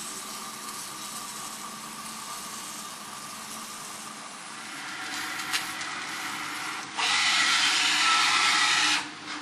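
Automated Q-switched laser cleaning system running over a metal baking plate: a steady machine hum with a faint whine and a single click about halfway. Near the end, a loud hiss for about two seconds, typical of the pulsed laser ablating deposits from the plate.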